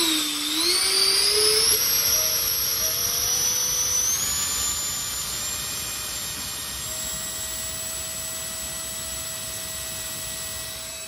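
A 64 mm electric ducted fan with a QXMotor 2822 3800kv brushless motor is spun up on a static thrust test. It makes a high whine over a rush of air. The whine climbs in pitch over the first few seconds, then holds steady.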